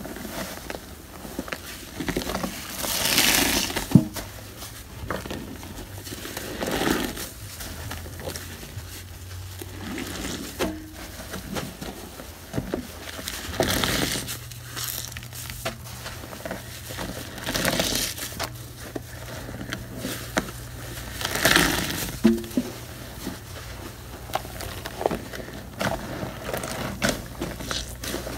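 Soap-soaked kitchen sponges squeezed and wrung by hand in a sink full of suds: a wet squelching squeeze every three to four seconds, with fine crackling of popping foam in between.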